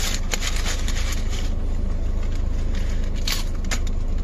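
A car engine idling with a steady low rumble, with a few short rustling crackles in the first second or so and two more about three seconds in.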